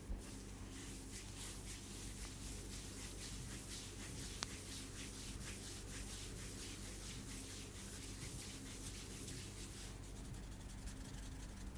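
Hands rubbing over hair and scalp in a head massage: a continuous rubbing made of many quick short strokes, with one sharp click about four seconds in.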